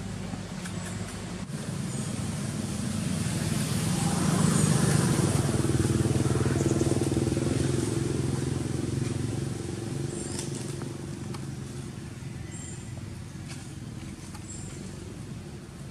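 A motor vehicle's engine running at a steady pitch, growing louder to a peak about five seconds in and then slowly fading away, as a vehicle passes by.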